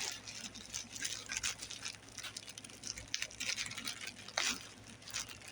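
Food packaging being handled: soft, irregular rustling and light clicks.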